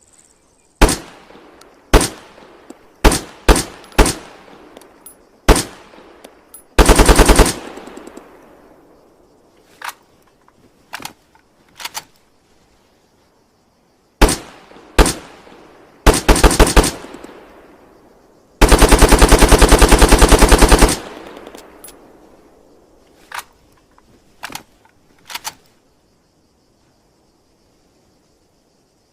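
AKS-74U short-barrelled 5.45×39mm carbine firing: several single shots, then short automatic bursts, and one long full-auto burst of about two seconds near the middle of the second half. Each report is followed by a fading echo tail, and there are some fainter single reports in between.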